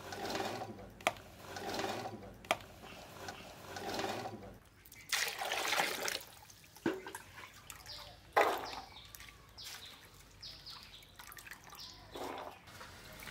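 Diced raw potatoes slid by hand from one aluminium bowl into another, in several rattling pushes with a couple of sharp clinks on the metal. About five seconds in, water is poured over them with a loud rush, and later the cubes are swished by hand in the water with light splashes.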